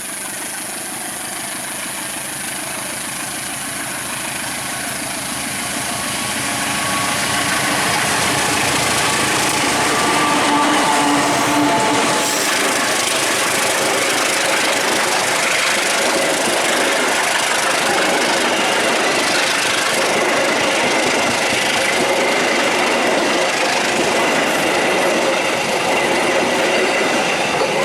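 Long-distance passenger train hauled by a diesel locomotive, passing close by. The sound grows louder over the first several seconds, then holds as a steady, loud run of engine and wheel-on-rail noise.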